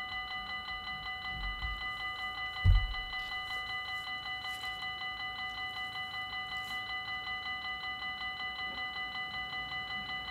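Dutch level crossing's electronic warning bell ringing in rapid, even strokes while the barriers are down, signalling an approaching train. A single low thump about two and a half seconds in.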